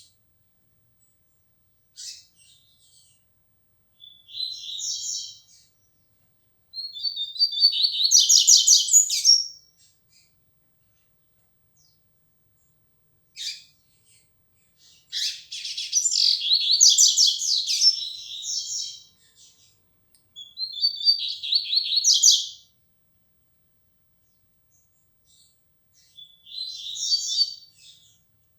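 Double-collared seedeater (coleiro) of the flecha negra line singing, a bird just beginning to sing more firmly. It gives about five high-pitched, warbling phrases separated by silent pauses, the longest about four seconds.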